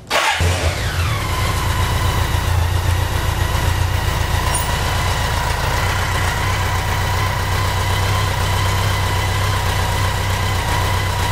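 BMW K100 motorcycle's four-cylinder engine starting up, its pitch falling within the first second as it settles into a steady idle with a whine over it. The engine is running well on a newly replaced fuel pump.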